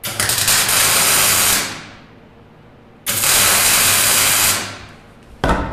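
Electric arc welding on a steel frame: two short welds, each a loud hiss lasting about a second and a half, with a pause between, then a short thump near the end.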